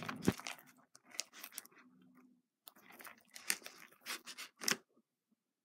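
Freshly made borax slime with shaving foam added being worked, giving irregular sticky crackles and clicks, with a short pause midway and another near the end.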